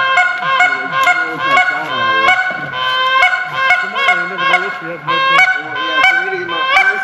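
Goose-like honking: many overlapping honks, several a second, over steady held tones.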